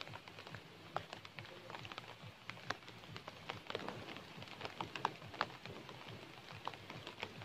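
Light rain: scattered drops tapping irregularly, several a second.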